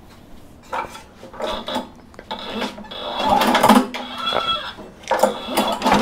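Honda HRC216 lawn mower engine pull-started, catching about two seconds in and running steadily. It is being checked for the shaking and rattling of its metal recoil cover, whose worn mounting holes have been built up with welded washers.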